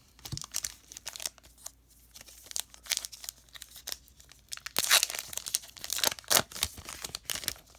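Crinkly foil wrapper of a Pokémon booster pack being torn open and handled: a run of sharp crackles and rustles, loudest around five seconds in.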